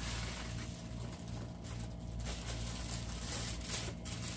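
Steady low hum in a small room, with faint crinkling of a clear plastic bag as pom-pom balls are shaken out of it into a glass bowl.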